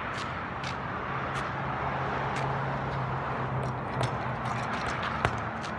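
Strikes on a freestanding punching bag: a few short, sharp thumps, the clearest about four seconds in and again a little after five seconds, over a steady low hum and rushing background noise.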